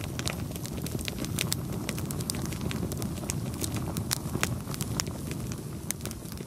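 Wood campfire burning: frequent, irregular sharp crackles and pops from the burning logs over a steady low rush.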